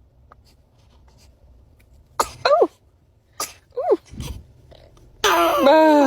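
A baby's small sneezes: a pair of short, high sneezes falling in pitch about two seconds in, then another pair about a second later. A longer, louder burst of voice follows near the end.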